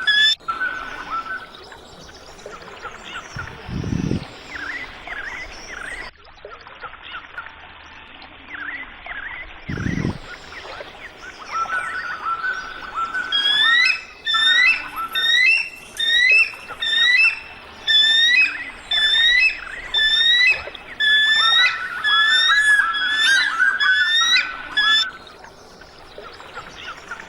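A bird calling in a rapid series of high, sliding whistled notes, about two a second, over a faint steady hiss of outdoor background. Scattered softer chirps come before the loud run, and two brief low thumps sound in the quieter first half.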